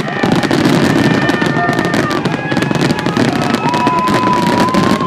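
Fireworks display: a dense, rapid run of bursts and crackling, with thin whistling tones over it, one held steady through the last second and a half.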